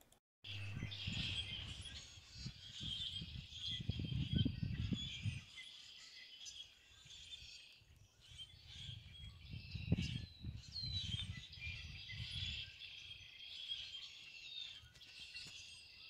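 Birds chirping and calling steadily in the background. Low rumbling comes and goes in two stretches, near the start and again in the middle.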